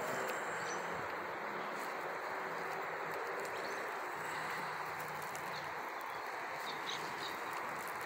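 Steady outdoor background noise under trees, with a few faint, short bird chirps.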